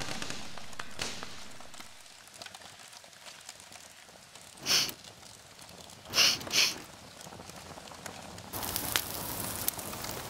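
Campfire crackling with scattered pops. Three short, loud hissing bursts stand out, one just under 5 seconds in and two close together a little after 6 seconds. A broader, louder crackling hiss comes up near the end.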